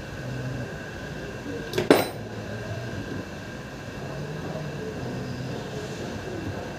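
Metal parts of a disassembled car starter motor being handled, with one sharp metallic clank about two seconds in as the housing is knocked or set down on the workbench. A steady hum runs underneath.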